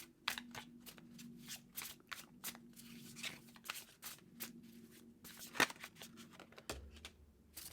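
Tarot cards being shuffled by hand: a quick, uneven run of soft riffling clicks, with one louder click about five and a half seconds in.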